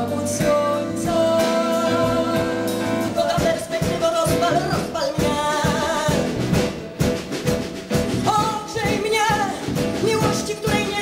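A woman singing a song live into a microphone, accompanied by electric bass guitar and a band.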